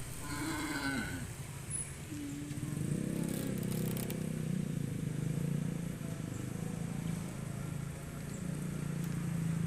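A cow moos in the first second, a falling low call, with a shorter call near the two-second mark. From about three seconds in, a steady low motor drone runs on.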